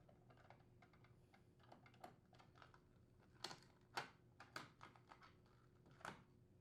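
Faint, irregular clicks and taps of a Phillips screwdriver unthreading the screw on a refrigerator's plastic hinge cover.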